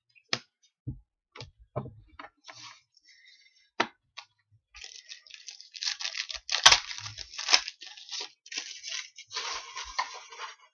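Hockey cards handled with scattered light clicks and taps, then a plastic card-pack wrapper crinkling and being torn open for about five seconds, with a couple of sharp snaps.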